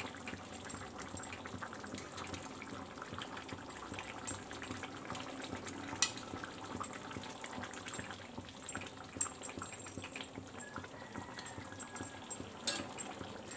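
A metal spoon scooping thick prawn-and-potato curry from a kadai onto a steel plate: wet sloshing and scraping, with a few sharp clinks of metal on metal.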